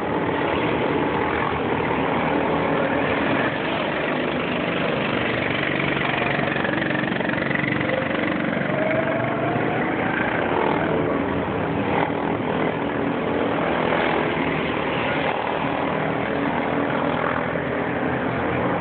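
Racing kart engines running out on the track during a race, a steady engine drone with pitches that rise and fall as the karts accelerate and lift off.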